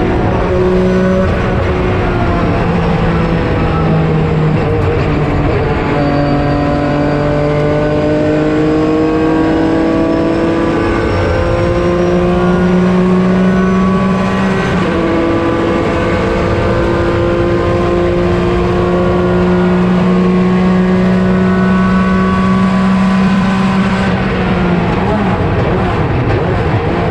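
Porsche 996 GT3 RSR's flat-six racing engine at full throttle, its pitch climbing steadily through the gears. There are two upshifts, about 6 and 15 seconds in, where the pitch drops sharply. Near the end the pitch falls as the car slows.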